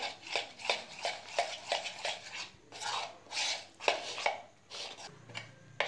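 Steel spoon stirring a thick flour-and-water batter in a bowl. It clicks and scrapes against the bowl in quick, uneven strokes, about three a second.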